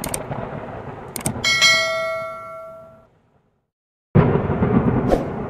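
Thunderstorm sound effect: rumbling thunder, then a single bell chime about a second and a half in that rings on and fades away, a moment of silence, and thunder with rain starting again near the end.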